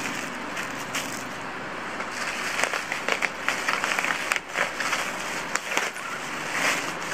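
Plastic bubble-wrap packaging crinkling and tearing as it is pulled open by hand, with many small sharp crackles in the middle of the stretch.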